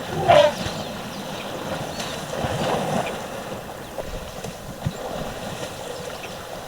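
Elephants splashing water as they bathe in a river, with one sharp, loud splash about a third of a second in and more sloshing a couple of seconds later.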